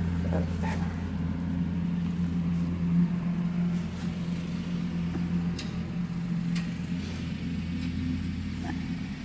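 A steady low machine hum, with a few light clicks over it.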